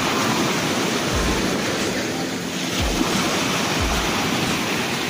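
Ocean surf breaking and washing through the shallows around people wading knee-deep, with a few low thumps.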